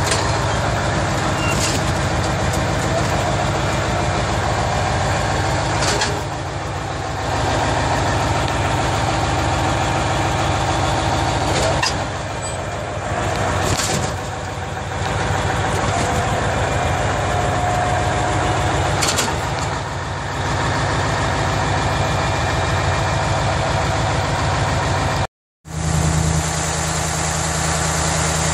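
Diesel engine of a Wirtgen 2000DC cold milling machine running steadily. A short break about 25 seconds in, after which the engine is heard close up in its open engine bay with a steadier low hum.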